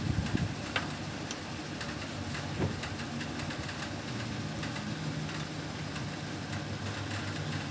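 Mitsubishi L300 van's engine idling steadily, heard from underneath the vehicle, with a few faint clicks.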